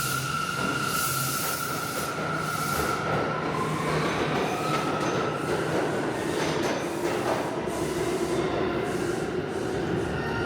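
New York City subway train running, with a steady rumble and high-pitched wheel squeal whose pitch shifts and bends in the middle stretch.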